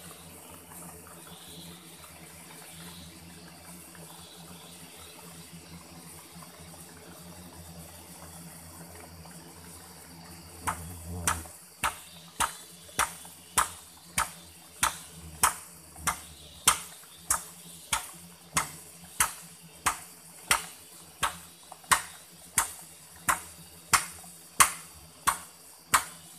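A digging tool striking into soil again and again, about one and a half blows a second, starting about ten seconds in: someone digging out a ground-wasp nest. Before the blows there is only a steady low background noise.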